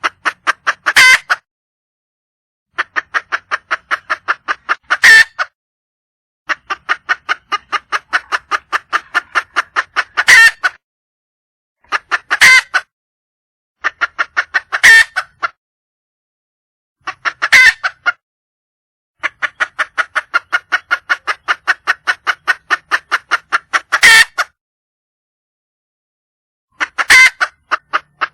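Red junglefowl hen calling for a mate: runs of rapid clucks, about eight a second, each run ending in a louder, sharper note. The runs repeat every few seconds, with a longer pause near the end.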